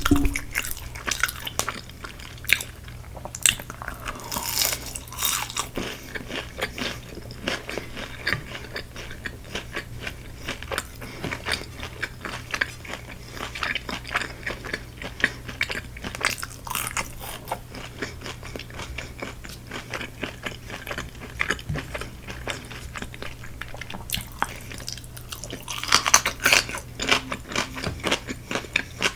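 Close-miked biting and chewing of crispy-coated Korean fried chicken: a steady run of crackling crunches, with louder bites about four seconds in and again near the end.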